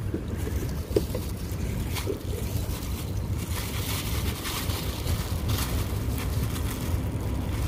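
Wind buffeting the microphone in a steady low rumble, with a sharp knock about a second in and a clear plastic bag crinkling in the hands from about three seconds in.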